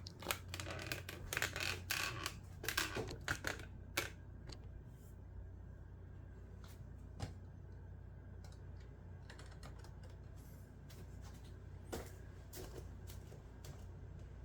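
Plastic clicking and rattling of vacuum cleaner parts being handled and fitted together, dense for the first four seconds or so, then only occasional clicks over a low steady hum.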